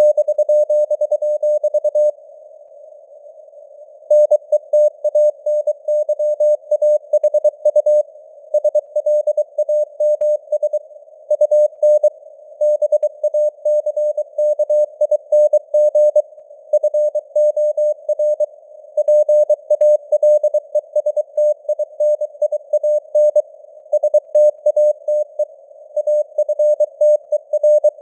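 Morse code (CW) sent at 23 words per minute: a single steady tone keyed on and off in dots and dashes over a narrow band of simulated radio hiss. A pause of about two seconds comes near the start, with only the hiss.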